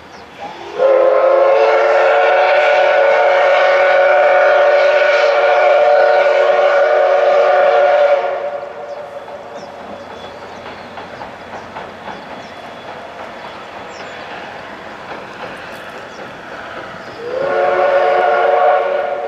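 Steam whistle of the C58 363 steam locomotive blowing one long blast of about seven seconds, then a second short blast of about two seconds near the end, each sliding up to pitch as it opens. Between the blasts the train's running across the steel bridge is faintly heard.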